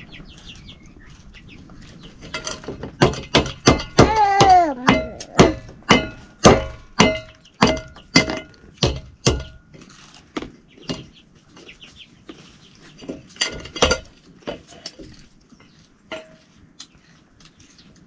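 A chicken clucking in a rapid run of sharp calls, with one long falling squawk about four seconds in. The calls thin out, then come again in a quick cluster later on.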